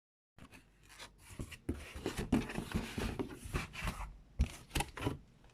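Close handling noises: irregular rustling and scraping, with a few sharp clicks near the end.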